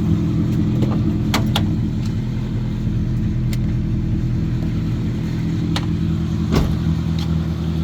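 2000 Honda CR-V's four-cylinder engine idling steadily, with a few sharp clicks over it.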